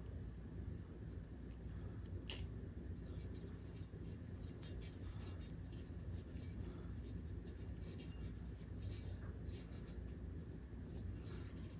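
Faint rustling and small clicks of fine 24-gauge wires being twisted together and a plastic wire nut being screwed onto them by hand, with one sharper click about two seconds in, over a low steady hum.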